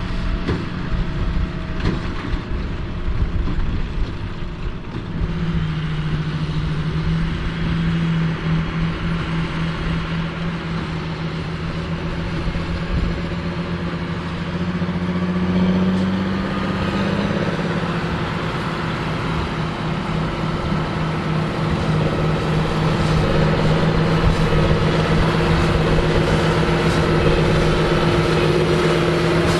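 A John Deere 8530 tractor's six-cylinder diesel runs steadily under load while pulling a large square baler. Its pitch lifts briefly around the middle, then settles, and the sound grows a little louder toward the end.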